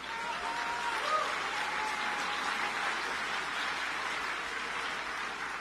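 Audience applauding and cheering, with a few voices calling out over the clapping near the start.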